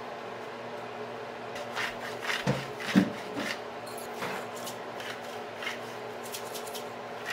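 Twist-top pepper and salt grinders: a few knocks and clatters of handling about two to three seconds in, then a run of short dry grinding rasps near the end, over a steady low hum.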